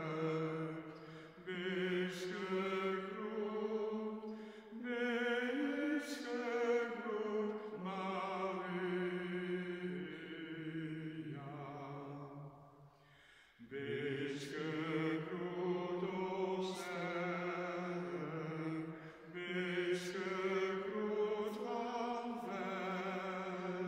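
A single voice singing a slow, unaccompanied church chant, with long held notes and vibrato; the singing stops for about a second halfway through, then resumes.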